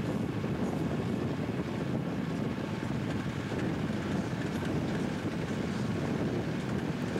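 Steady rushing wind on the microphone and road noise from a moving car pacing a train, with no distinct tones or knocks.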